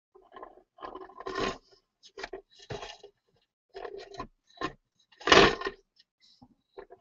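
Irregular scraping and crunching handling noises as a glazed ceramic bowl is turned and rubbed during polishing, with the loudest scrape about five seconds in.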